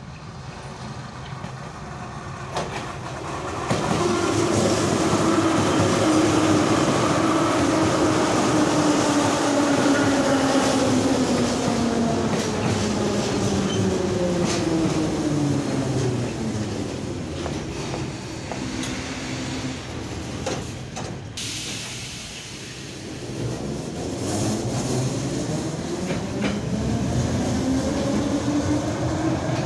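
Kyiv Metro train running in, its traction-motor whine falling steadily in pitch as it slows over a loud wheel-and-rail rumble with clatter. The whine dies away about two-thirds of the way through, then a rising whine builds as the train pulls away.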